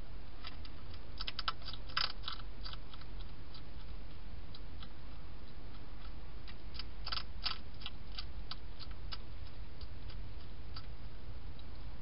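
Wild hedgehog crunching dry food: irregular sharp crunches in two flurries, a little after a second in and again around seven seconds in, with scattered single clicks between, over a steady low background hiss.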